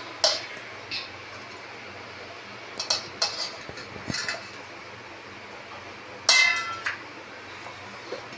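Steel plate and stainless-steel mixer-grinder jar clinking together as tomato pieces and garlic cloves are tipped into the jar: a handful of sharp clinks, the loudest about six seconds in, ringing briefly.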